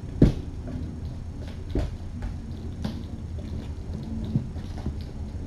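Kittens moving about on a hard floor: a few scattered thumps and knocks, the loudest just after the start, over a steady low hum.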